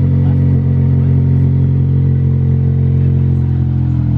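Car engine running at steady revs, its pitch easing down slightly near the end.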